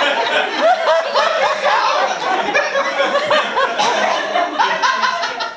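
A group of adults laughing together, with overlapping chuckles and bits of chatter.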